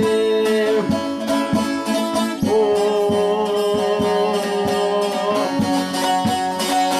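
Bağlama (long-necked Turkish saz) playing a folk melody, its strings struck about twice a second over ringing, sustained notes.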